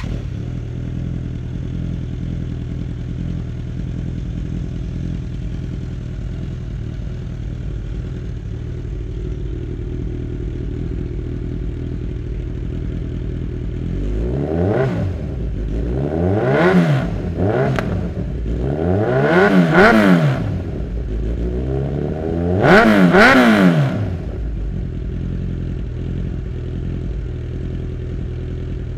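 Kawasaki Z1000's inline-four engine idling through an unbaffled Jeskap 4-2-1 full exhaust, then revved in four quick throttle blips about halfway through, each rising and falling in pitch, before settling back to a steady idle.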